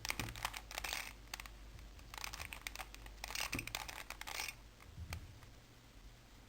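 Plastic Rubik's Cube layers being twisted by hand: quick runs of clicking and rattling in several bursts, stopping about five seconds in.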